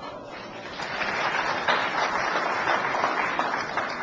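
Audience applauding, building up about a second in and starting to die away near the end.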